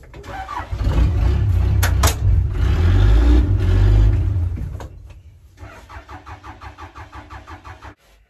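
A tractor engine runs hard and dies about five seconds in. It is then cranked over by the starter in a quick, even rhythm without catching, and the cranking cuts off suddenly near the end. This fits the tractor running out of fuel, which is what the crew suspects.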